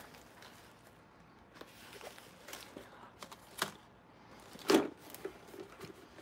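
Quiet handling noises as items and packaging are moved about: faint rustling with a few light clicks and knocks, the loudest a single knock about five seconds in.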